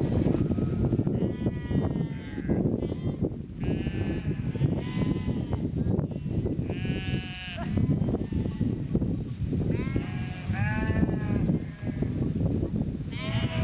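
A large flock of sheep and goats bleating, many separate wavering calls following one another every second or two, some overlapping, over a steady low rustling noise.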